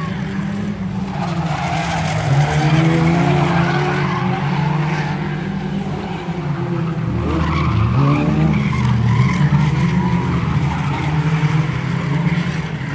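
Engines of several 1600s-class oval race cars running hard as the pack laps the track, their notes rising and falling as the drivers rev through the turns, with tyre skidding under them.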